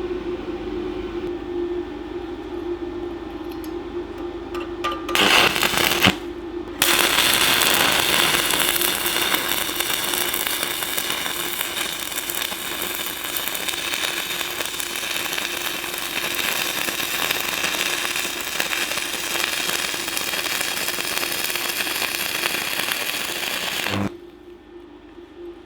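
Stick (MMA) welding arc from a Decapower Ecoarc 160 inverter welder: a short crackling strike about five seconds in, a brief break, then a steady crackling, sizzling arc for about seventeen seconds that stops suddenly near the end. A steady low hum runs underneath.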